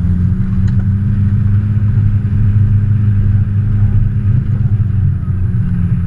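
Isuzu 4x4's engine running steadily as the vehicle drives along a dirt track, a loud, even low drone.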